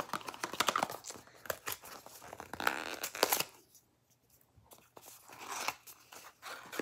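Small cardboard gift box and its paper packaging being torn open and handled: tearing, with crinkling and rustling, broken by a short pause about four seconds in.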